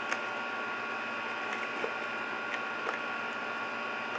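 Cardboard box flaps being handled and pulled open by hand: a few faint separate clicks and scrapes of the card over a steady background hiss carrying a few faint steady tones.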